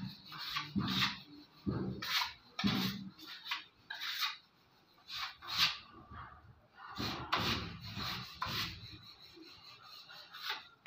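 Hand rubbing over the surface of a polished wooden door in short, irregular scraping strokes, with quieter pauses about four seconds in and near the end.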